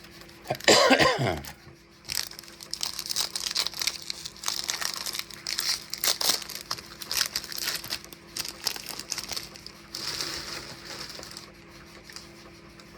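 A plastic-foil trading card pack wrapper being torn open and crinkled, an uneven crackling that runs for several seconds and dies away near the end. Before it, about a second in, comes a short vocal sound from the person opening it.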